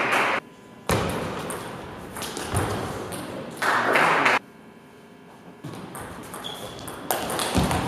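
A table tennis ball clicking off the table and the rubber-faced bats as a point is served and a rally begins in the second half. Earlier there are two loud bursts of noise from the hall, the first about a second in and the second around four seconds in.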